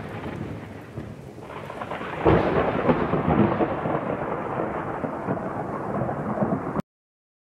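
Thunderstorm sound effect: rain with a clap of thunder about two seconds in that rumbles on, then cuts off abruptly near the end.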